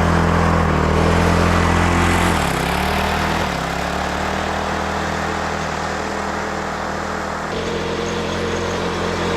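Small lawn tractor engine running steadily just after starting, with a brief dip in pitch about two and a half seconds in and a change in its tone near the end.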